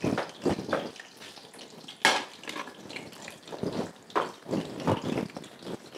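Brick pastry frying in hot oil in a pan, a light sizzle, with a few knocks and rustles of handling around it, the sharpest about two seconds in.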